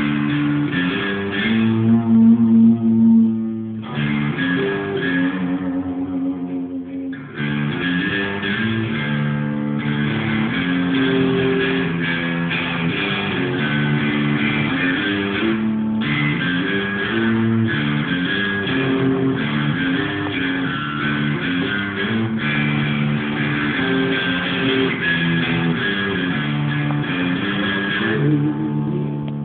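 Electric guitar playing a short original hook: held notes and chords that change about once a second, with a brief dip in loudness about seven seconds in.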